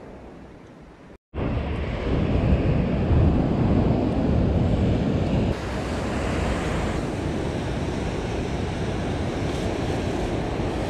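Ocean surf breaking on a rocky, boulder-lined shore, with wind rumbling on the microphone. It starts abruptly about a second in, is loudest for the next few seconds, then settles to a steadier wash.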